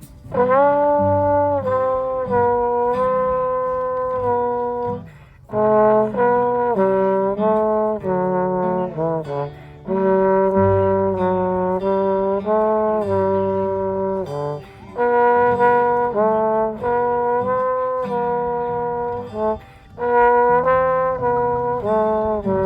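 Brass-led instrumental music: a melody played in phrases of about five seconds, each followed by a brief break.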